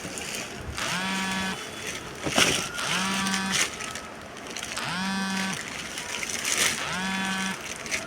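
Brass bulb horn with a large rubber bulb squeezed four times, about every two seconds. Each squeeze gives a reedy honk that rises briefly in pitch and then holds for under a second, with a short airy rush between some honks.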